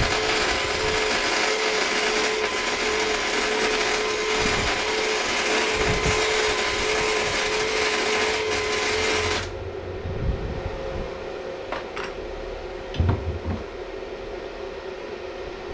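Gasless flux-core wire welding with a Stahlwerk MIG 135 M IGBT inverter welder: the arc crackles steadily with a steady hum under it, then stops abruptly about nine and a half seconds in. A few light knocks follow.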